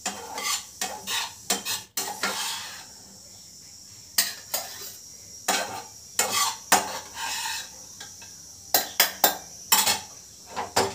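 Metal spoon scraping and clinking against a pan and a steel mixer-grinder jar in irregular bursts as cooked masala is scooped into the jar.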